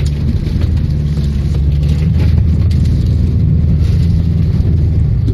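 Hyundai Santa Fe 2.0 CRDi diesel engine running steadily under load while the SUV works through a diagonal axle hang on slippery ground.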